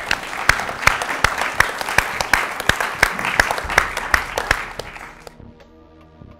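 A roomful of people applauding, with many sharp individual claps standing out. It dies away about five seconds in, leaving soft background music.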